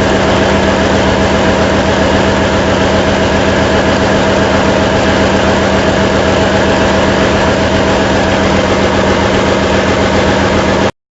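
Ship's diesel generator set running at steady speed: a loud, even machinery drone with a constant hum, which cuts off abruptly near the end.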